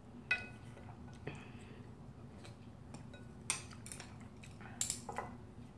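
Spoon and chopsticks clinking and knocking against a ceramic noodle bowl and spoon rest. There are several separate clinks; the first and loudest rings briefly.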